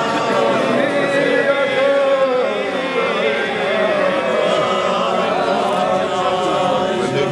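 A crowd of Hasidic men singing a chant-like melody together, many voices at once.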